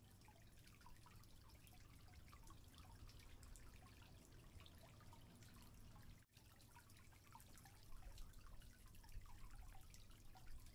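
Faint aquarium water sounds: a steady patter of tiny drips and bubble pops over a low hum.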